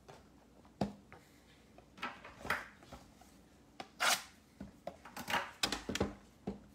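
Cardboard 2020 Panini Mosaic football blaster boxes being handled on a wooden table: a sharp knock about a second in, then a run of scraping, rustling and short bumps as a box is picked up and moved.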